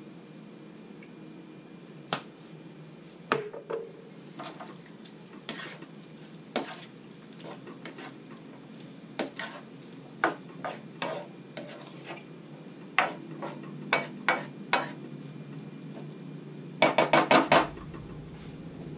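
A spatula stirring and scraping stir-fried broccoli and vegetables in a wok, with scattered sharp knocks of the spatula against the pan. Near the end comes a quick run of about six loud knocks.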